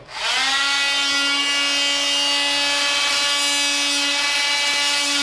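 Oscillating multi-tool running at a steady high-pitched whine, pitch rising briefly as it spins up.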